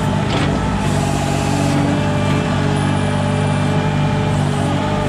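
Caterpillar Navigator 5500 piggyback forklift's engine running steadily, a little stronger from about a second in.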